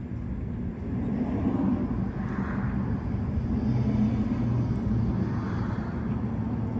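Steady low engine hum with vehicle noise that grows louder about a second in and swells twice.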